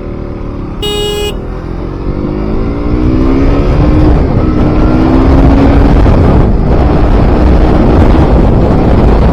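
KTM RC 200's single-cylinder engine accelerating, its pitch rising through the revs over several seconds, with wind rush growing louder as speed builds. A short horn toot sounds about a second in.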